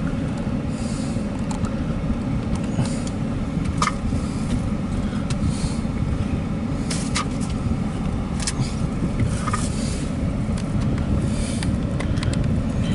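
Steady low rumble of a CSX empty coal train rolling past, heard from inside a car, with a few short clicks and brief squeaks rising above it.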